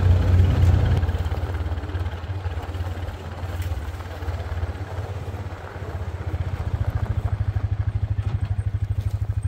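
A vehicle engine running: louder for the first second, then easing off. Over the last few seconds it settles into an idle with a steady, even throb.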